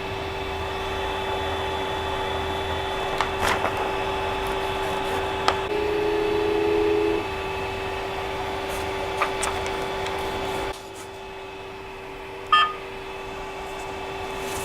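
Creality CR-10S Pro 3D printer running during bed levelling: its motors and fans give a steady whine, with a second pitch joining for about a second and a half near the middle and a few light clicks. The noise drops about two thirds of the way through, and a short electronic beep follows.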